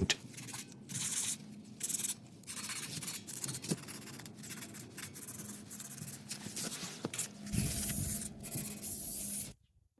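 Hand sanding with 320 grit sandpaper on a primed cast iron bench frame: repeated, irregular rasping rubbing strokes, a light scuff-sanding to smooth the flat black primer before paint. The sound stops abruptly shortly before the end.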